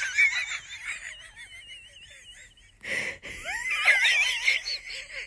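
A dog whining in high, wavering squeals that fade away, then grow loud again shortly after a short noisy burst about three seconds in.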